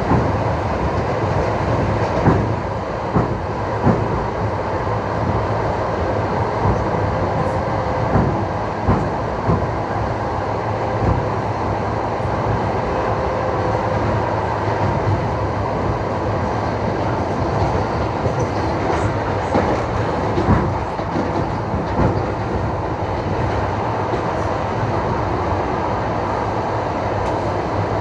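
Moving train: a steady running rumble with wheels knocking over rail joints, irregular thumps every second or two.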